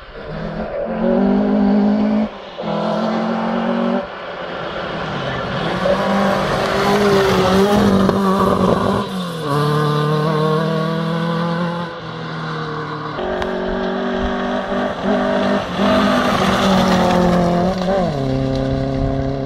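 Rally cars coming along a gravel stage one after another, engines revving hard, the pitch climbing and dropping sharply with each gear change and lift off the throttle.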